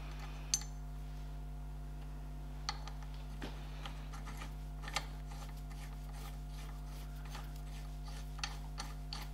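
A few light metallic clicks and clinks as a washer and nut are handled and fitted by hand onto a new wheel stud in a tractor front hub flange, the sharpest about half a second in. A steady low hum runs underneath.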